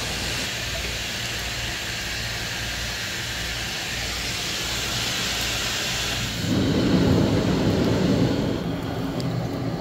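Steady hiss of steam coming off red-hot steel, then, about six and a half seconds in, a louder, deeper rushing noise from the forge fire as sparks fly up from the coals.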